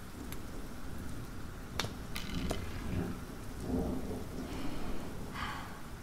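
Steady rain, with a low rumble of thunder about three to four seconds in and a few sharp clicks around two seconds in.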